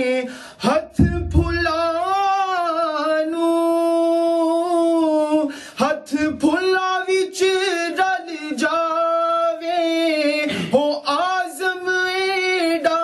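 A man singing a Punjabi naat unaccompanied into a microphone, drawing out long held notes with a wavering, ornamented melody and pausing for breath a few times. There is a brief low thump about a second in.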